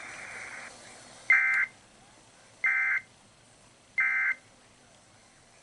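NOAA Weather Radio sending its digital end-of-message code: three short, identical warbling data-tone bursts about a second apart, marking the end of the alert. Before them a brief hiss of radio static cuts off.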